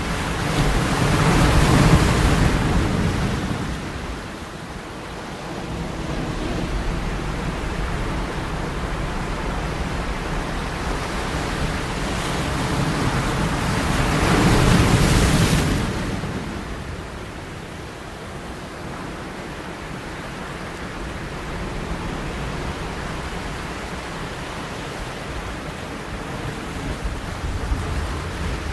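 Sea waves breaking: two big swells of surf, about two seconds in and again around fourteen to fifteen seconds in, each building and then fading. Between and after them comes a steady, quieter wash of water.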